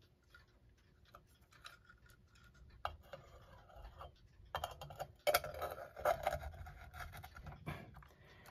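Handling noise of a clock movement being seated by hand into a wooden clock case: faint scattered clicks and taps at first, then louder rubbing and scraping of the metal movement against the case from about halfway through.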